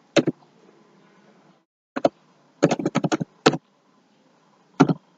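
Computer keyboard keystrokes: single key taps with gaps, then a quick run of about six keystrokes in the middle and one more tap near the end.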